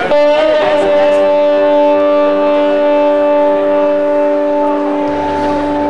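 Amplified electric guitar chord struck once and left to ring, its notes held steady without fading. A low note joins about five seconds in.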